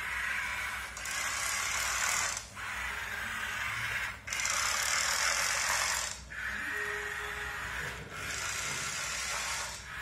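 Remote-control toy skateboard's small electric motor and plastic gears whirring as it drives, with its wheels rolling on the hard floor. The whir comes in runs of a second or two, broken by brief dips.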